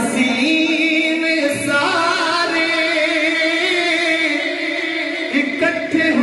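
A man singing a naat, an Urdu devotional poem, without instruments, drawing out long wavering notes.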